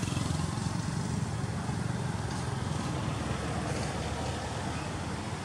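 Steady low drone of a motor vehicle engine running nearby, fading slightly near the end.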